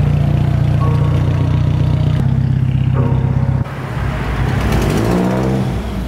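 Mazdaspeed 6's turbocharged 2.3-litre four-cylinder engine and exhaust running steadily. After an abrupt cut a little past halfway, there is a rev that rises and falls.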